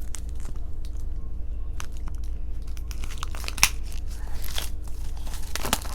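Small wooden jigsaw puzzle pieces being handled: scattered light clicks and rustling, with a sharper click about three and a half seconds in and a few more near the end.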